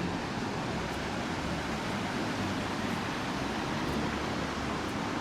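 Waterfall and river water rushing, a steady even noise with a low rumble beneath it.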